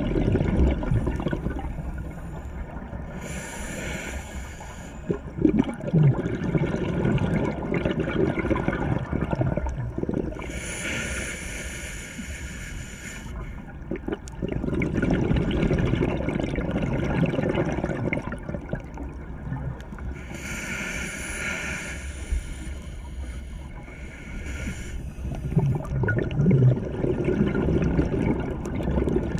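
Scuba diver breathing through a regulator underwater: three slow breaths, each a short hissing inhale followed by a longer burst of gurgling exhaust bubbles.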